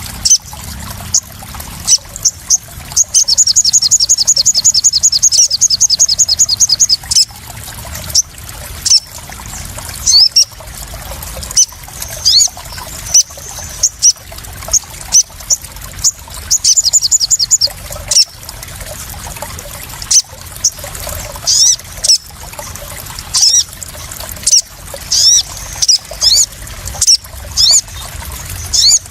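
Crimson sunbird (sogon) calling: high, thin chirps and quick downward sweeps, with a long rapid trill a few seconds in and a shorter one past the middle. Underneath, water splashes and trickles with sharp irregular splash clicks.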